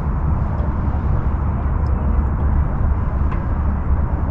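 Wind buffeting an on-board camera microphone on a sailboat, a steady low rumble.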